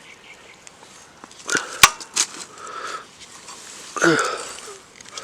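Three sharp clicks or taps about a second and a half in, then a person's breathy exhale with a falling pitch, like a sigh, a little before the end.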